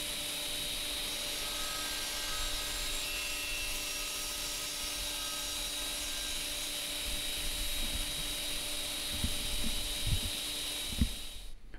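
Sliding-table circular saw of a Hammer B3 combination machine running steadily while a timber door part is crosscut to square one end. A few low thumps come near the end.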